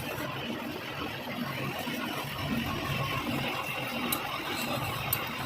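A machine running steadily in a workshop, most likely a metal lathe at work on a shaft, with two sharp clicks near the end.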